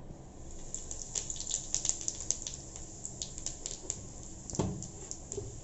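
Cumin seeds sizzling in hot oil in a metal kadhai, a steady hiss with a quick run of sharp crackling pops. One duller thump about four and a half seconds in.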